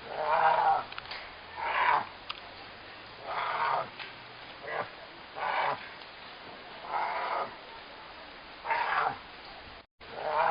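An animal calling over and over: about eight short, rough calls roughly a second and a half apart, with a brief break in the sound near the end.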